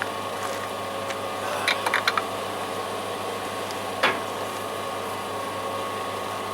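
Generator running with a steady hum. A few quick light clicks come about two seconds in and a single sharper click about four seconds in, from hand tools on metal.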